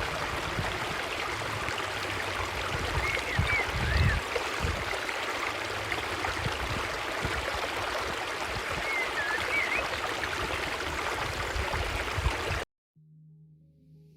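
Steady rush of running water, like a stream, with low thumps and short high chirps twice. It cuts off abruptly near the end, leaving faint steady musical tones.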